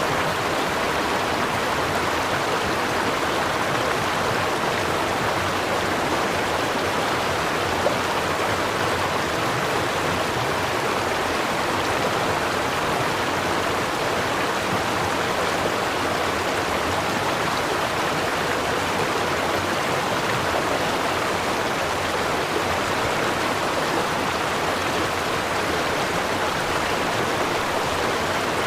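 River water flowing, a steady rushing wash without let-up.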